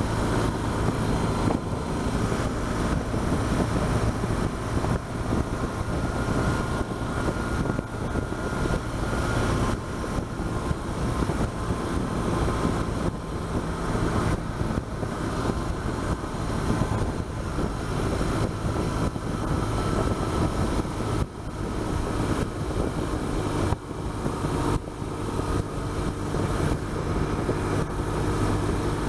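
BMW R1200GS flat-twin engine running steadily at road speed, under a constant rush of wind and road noise on the bike-mounted camera.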